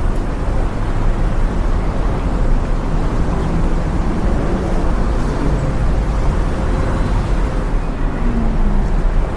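Steady, loud low rumbling noise with faint pitch glides under it, the kind a running vehicle or wind on the microphone makes.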